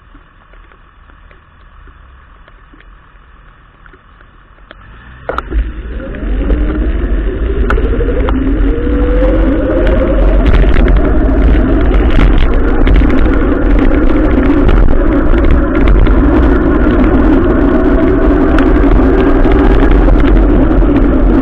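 A vehicle's engine pulls away about five seconds in, its pitch rising steeply as it accelerates. It then runs on steadily at speed under heavy wind rumble on the microphone. A faint steady hiss with light ticks, typical of rain, comes before it.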